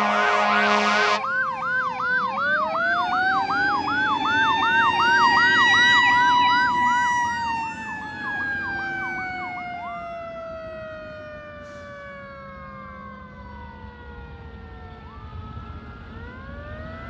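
Emergency vehicle sirens passing and fading away. A horn blasts for about the first second over a fast yelp siren, while a second siren wails, rising and then falling slowly. The sound grows fainter from the middle on, and a wail starts rising again near the end.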